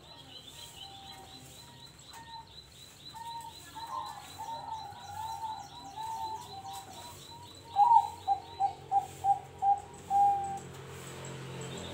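Caged zebra doves (perkutut) cooing: soft coos from about four seconds in, then one bird gives a loud phrase near the end, a strong opening note followed by five short, evenly spaced coos and a longer closing note.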